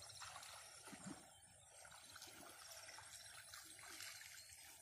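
Faint splashing of a hooked snakehead thrashing in shallow water as it is pulled in to the bank on the line.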